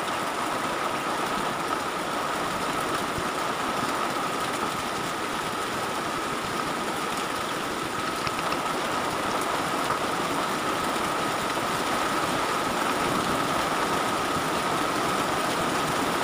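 Steady hiss with a faint, constant high whine running under it.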